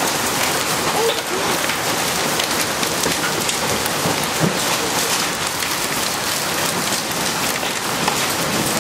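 Heavy rain mixed with small hail falling on concrete: a steady, dense hiss with many sharp ticks of pellets striking.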